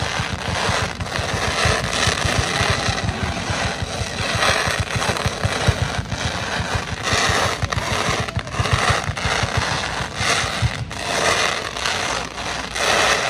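Fireworks display: aerial shells bursting overhead in a dense, continuous barrage of crackling and rapid popping.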